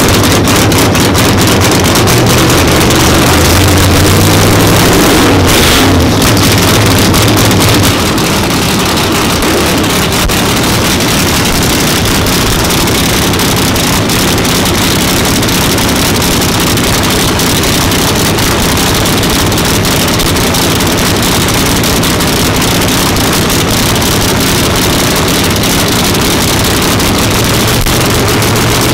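Engine of a 1969 Camaro no-prep drag race car idling loudly and steadily at the starting line, its note changing and dropping slightly about eight seconds in.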